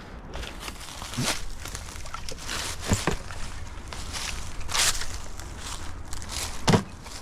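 Footsteps and rustling through roadside brush and litter, with a few irregular sharp knocks and crackles, the loudest near the end.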